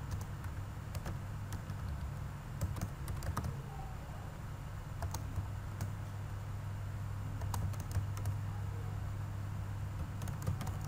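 Typing on a computer keyboard: irregular, sharp key clicks, over a steady low hum.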